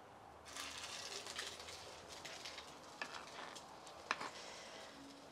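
Potato-and-tuna patty frying in hot oil in a clay cazuela: the sizzle starts suddenly about half a second in as the patty is laid in the oil, and goes on as a faint hiss with a few sharp crackles.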